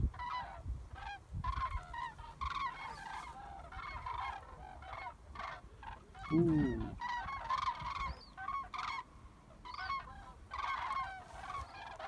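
A flock of common cranes calling in flight, many trumpeting calls overlapping without a break. About six seconds in there is one lower, louder sound.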